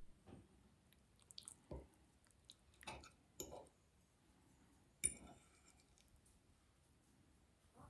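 Metal fork tapping and scraping on a ceramic plate: a few soft clinks spread through, the sharpest about five seconds in with a short ring.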